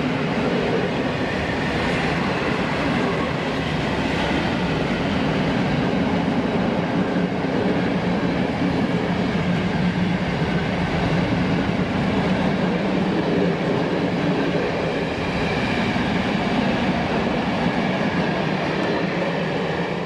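Freight train of coal hopper wagons passing close by: a steady, loud running noise of wheels on the rails.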